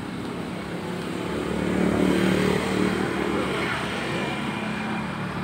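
Motor vehicle engine running on the road, swelling to its loudest about two seconds in and then easing off.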